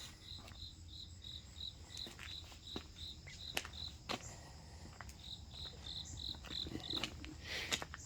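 A cricket chirping in a steady, high-pitched pulse of about four chirps a second, which breaks off for about a second midway and then resumes. Scattered faint clicks and rustles sound alongside it.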